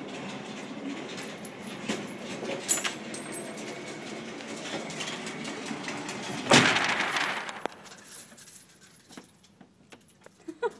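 Indoor range's motorized target carrier running along its overhead track, bringing the paper target up the lane. It stops with a loud bang about two-thirds of the way through, followed by quiet with a few small clicks.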